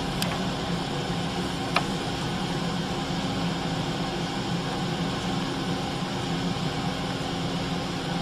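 Steady background machine hum with an even hiss, and a faint click nearly two seconds in.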